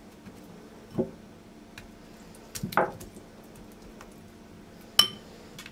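Soft pats and squishes of oiled dough being folded over and pressed down by hand on a silicone baking mat: a dull pat about a second in and a longer squish near the middle. A single sharp clink with a short ring near the end.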